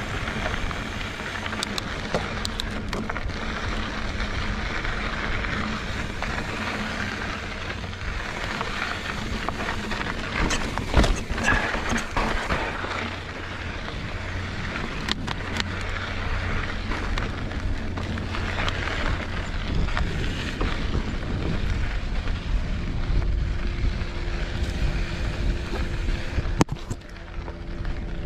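Mountain bike rolling over a rocky trail: a steady rush of tyre and wind noise with the bike rattling and knocking over bumps, one sharper knock about eleven seconds in.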